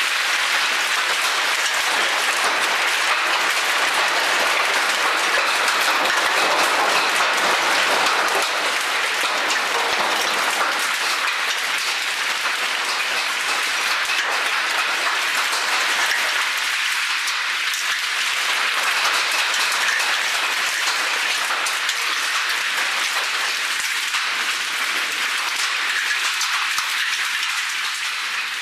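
Hail and heavy rain pelting down together: a dense, steady clatter of countless small hits, a little heavier in the first third.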